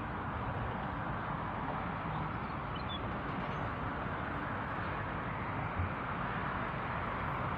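Steady rushing outdoor background noise, with one brief soft thump about six seconds in.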